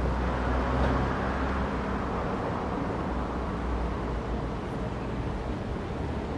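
Road traffic noise with a low engine rumble, swelling about a second in as a vehicle passes and then easing back to a steady traffic hum.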